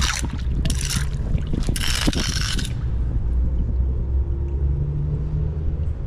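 Creek water sloshing and splashing in a few short rushes over the first couple of seconds, then a steady low rumble with a faint hum.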